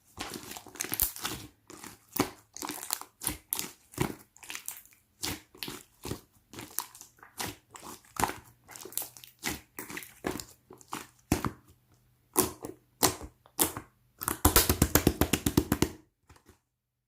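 Semi-translucent slime mixed with pearl beads being squished and pressed by hand, giving a string of crackling clicks and pops. Near the end comes a fast run of clicks, about ten a second, for a second and a half.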